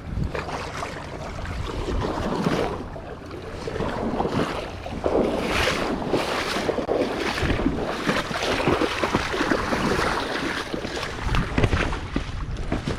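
Churning, splashing water with wind buffeting the microphone, coming in uneven surges.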